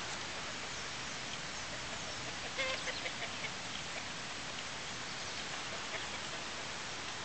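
A steady rushing hiss, with a bird giving a quick run of five or so short calls about two and a half seconds in.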